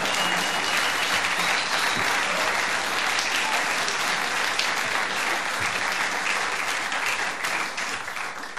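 Theatre audience applauding, the clapping dying down near the end.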